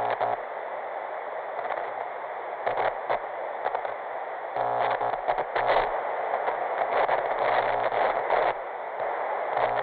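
Lost-signal static: a steady, thin radio-like hiss with irregular crackles. A low buzzing hum cuts in and out, mostly from about five seconds in.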